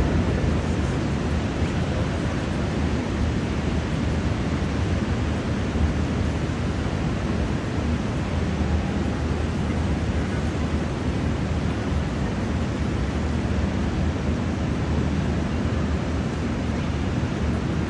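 Rain falling steadily: a dense, even hiss that keeps up without a break.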